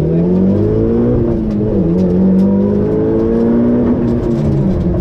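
Rally car engine heard from inside the cabin, accelerating hard. The revs climb, drop briefly about two seconds in as a gear is changed, climb again, then ease off near the end.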